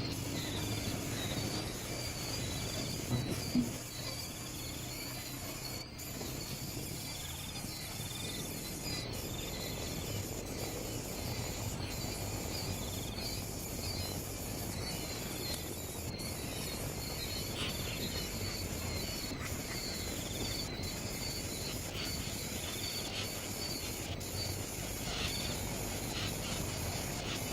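Insects chirping steadily outdoors in a rapid, high-pitched repeated pattern over a low steady hum, with two short knocks about three seconds in.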